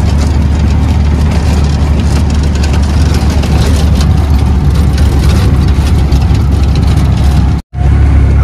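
Steady rumble of a motor vehicle's engine and road noise, heard from on board while riding. It is broken by a brief cut to silence near the end.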